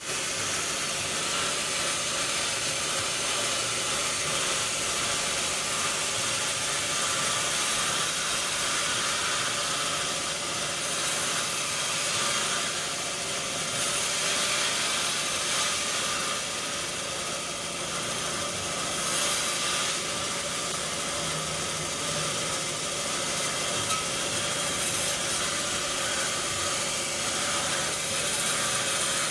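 Sawmill machinery running with a steady, even mechanical noise and a faint hum.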